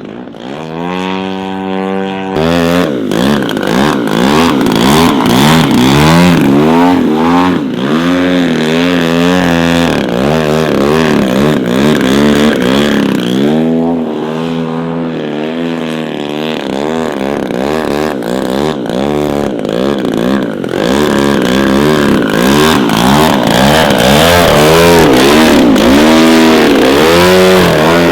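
Radio-controlled model airplane engine in flight. Its pitch swoops up and down again and again as the plane makes passes and changes throttle, and it gets louder over the last few seconds.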